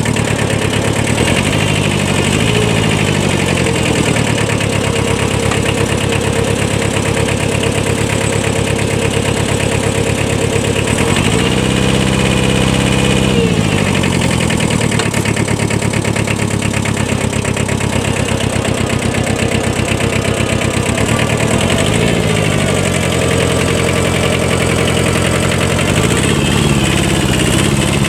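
Small Kubota 4x4 compact tractor's diesel engine running, its pitch rising and falling several times as the throttle changes, with one longer rev held for about two seconds near the middle.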